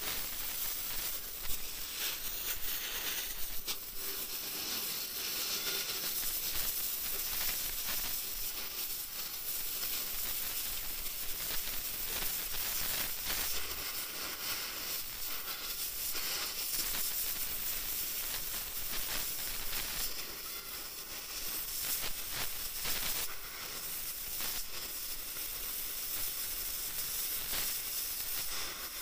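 Oxy-gas cutting torch cutting through a steel car leaf spring: a steady hiss from the flame and oxygen jet, with crackling from the cut.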